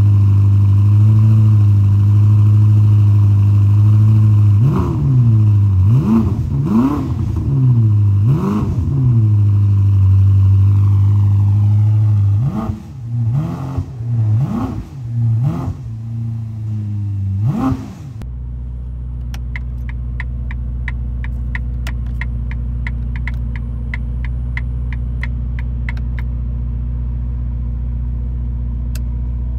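Ferrari SF90 Stradale's 4.0-litre twin-turbo V8 idling and being blipped: the revs rise and fall several times, with a run of quicker blips before the engine sound cuts off about 18 seconds in. A steady low hum with a regular run of sharp ticks, about two a second, follows.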